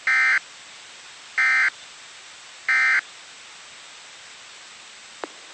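Weather radio sending three short, buzzy digital data bursts about 1.3 s apart, the SAME end-of-message code that closes an Environment Canada alert, over steady radio hiss. A faint click near the end.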